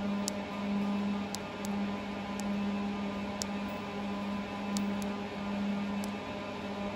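Steady electrical hum from powered control electronics, with about eight faint, sharp clicks of the keypad's tactile push-buttons being pressed to step through settings.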